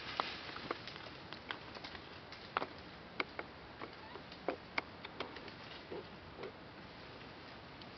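A macaque chewing fruit: irregular small clicks and smacks, a few sharper than the rest, that stop about six and a half seconds in.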